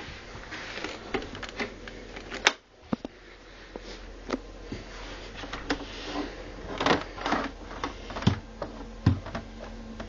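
Argos Value dehumidifier running with a steady low hum, under irregular clicks and knocks, the loudest cluster about seven seconds in.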